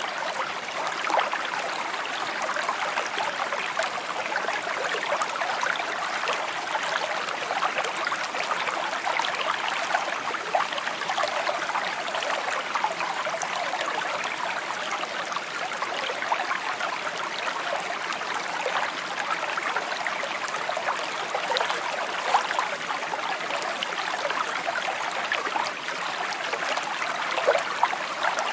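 Small stream flowing steadily over stones, a continuous babbling trickle with many small splashes and gurgles.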